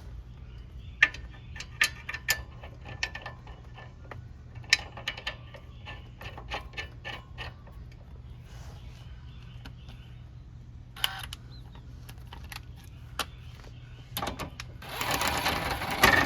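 Hand tools and metal parts clicking and clinking during installation of a front lower ball joint, sharp separate clicks scattered through the first half. Near the end, a few seconds of louder, rapid mechanical rattling as the fasteners are worked in.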